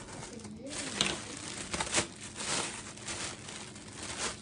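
Clear plastic packaging crinkling and rustling as it is handled around a wire steam rack, with several sharper crackles.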